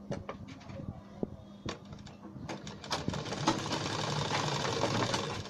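Sewing machine stitching a seam through a buckram strip. After a few scattered handling clicks, the needle runs fast for about the last two and a half seconds.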